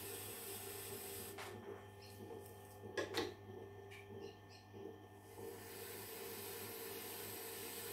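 Tormek sharpener's motor humming steadily under a faint hiss, with two sharp metal clicks about three seconds in and a few lighter ticks as the knife in its jig is set against the support bar.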